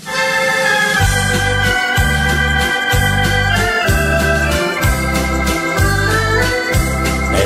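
Instrumental intro of a karaoke backing track for a Dutch sea song: a sustained melody over a bass that pulses in steady beats from about a second in.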